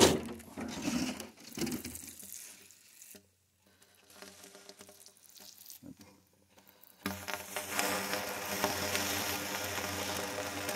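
Water sprayed from a nozzle onto the hot metal top of a rocket stove's pipe, hissing and sizzling steadily from a sudden start about seven seconds in, with a faint steady hum under it. Before that, brief rustling of dry leaves.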